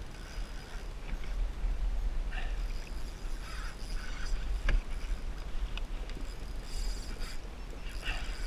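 Choppy sea water slapping and lapping against a plastic kayak hull, over a steady low wind rumble on the mic. A single sharp knock comes about halfway through.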